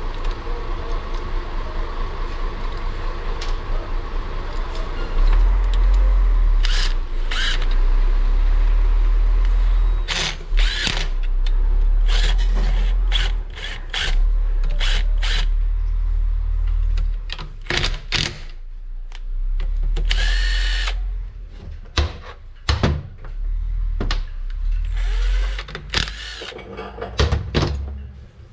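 Cordless drill running in a series of spurts of varying length at the gear-shift housing of a Tofaş four-speed gearbox, with sharp metal clinks between the runs. A steady hum fills the first few seconds before the drill starts.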